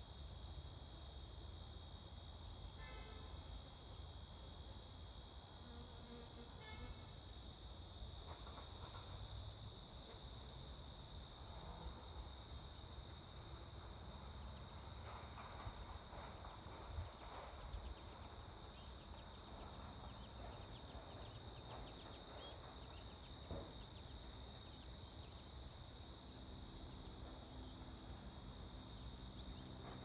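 Insect chorus in a meadow, a steady high-pitched trill that never breaks, over a low rumble.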